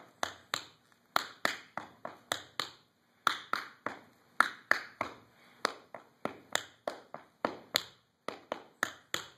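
Tap shoes' metal taps striking a wooden floor in a quick, uneven rhythm of sharp clicks: a basic tap combination of brushes, toe and heel drops and scuffs. It comes in short phrases, with brief pauses about 3 and 8 seconds in.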